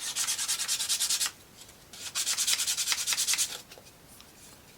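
Hand sanding of a plywood model-kit part: two runs of quick back-and-forth strokes, the second starting about two seconds in, then it stops.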